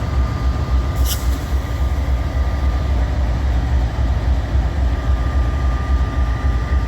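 Diesel-electric freight locomotive idling while it sits waiting for a signal: a steady, loud low rumble with a faint constant whine above it.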